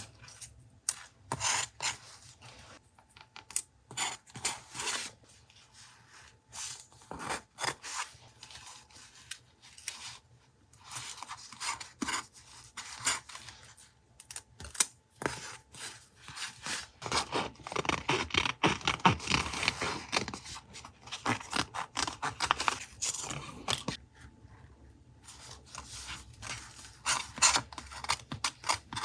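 Paper crafting sounds for a journal collage: paper and stickers being handled, rubbed, scraped and snipped, a string of short crisp rustles and clicks with a denser stretch of rubbing and scraping in the middle.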